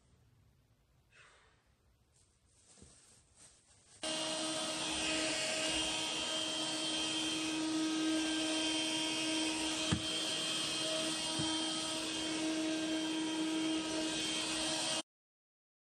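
Stick vacuum cleaner running over carpet, a steady whine with several held tones. It starts suddenly about four seconds in and cuts off sharply near the end.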